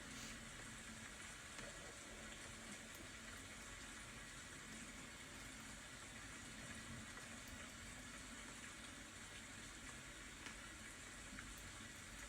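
Faint, steady rain: an even hiss with a few small scattered drip ticks.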